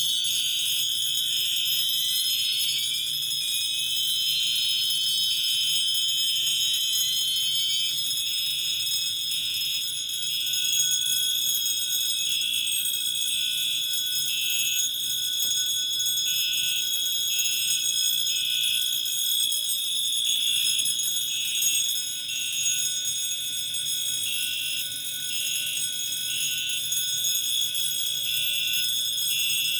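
Fire alarm signalling devices sounding together: a loud steady high-pitched tone, a second tone pulsing on and off beneath it, and a few rising whoops in the first eight seconds or so.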